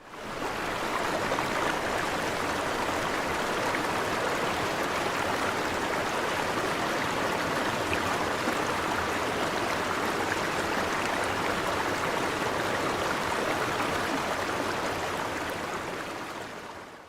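Steady rushing of flowing water, like a stream, fading in at the start and fading out near the end.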